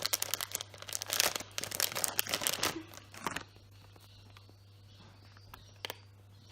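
Squishy packaging being torn open and crinkled, a rapid crackling that stops about three and a half seconds in, followed by a few faint clicks.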